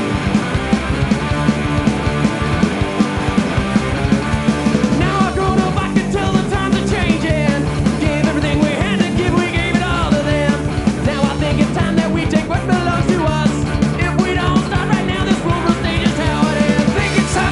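Loud punk rock music, with a wavering melody line coming in about five seconds in.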